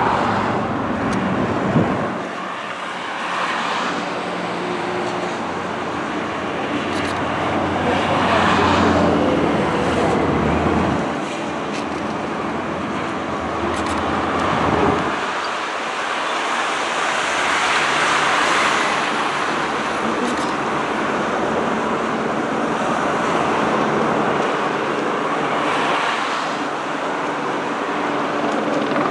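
Motorway traffic passing below: tyre and engine noise from a column of hearses with a police motorcycle escort and other cars and lorries, swelling as each group of vehicles goes by.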